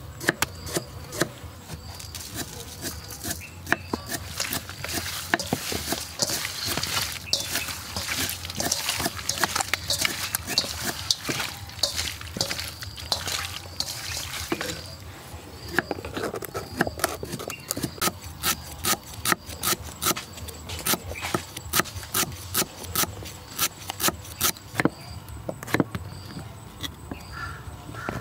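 Cut eel pieces being rubbed and turned by hand in a steel bowl, with scraping and small knocks. From about halfway through, a knife chops on a wooden cutting board in a steady series of knocks, about two a second.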